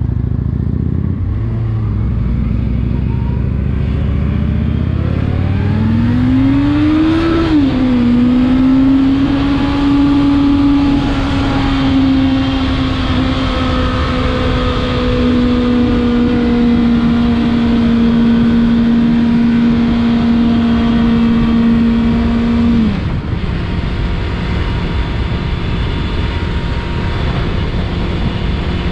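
Motorcycle engine pulling away with rising revs, shifting up about seven seconds in, then holding steady cruising revs that sag slowly until the throttle closes with a sudden drop near the end, all under a heavy wind rumble.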